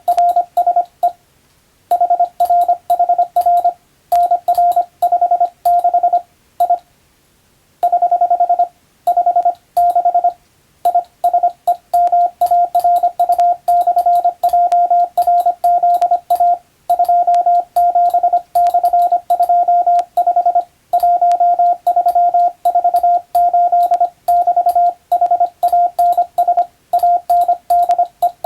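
Morse code played as a single steady beeping tone, keyed on and off in fast dots and dashes of English-text telegram practice. There are brief pauses of about a second twice, between groups.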